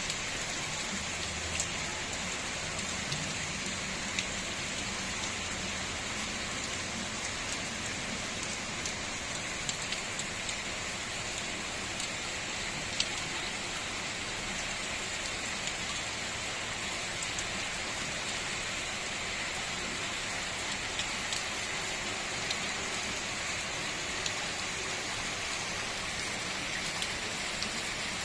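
Steady rain falling, with scattered louder drops ticking now and then.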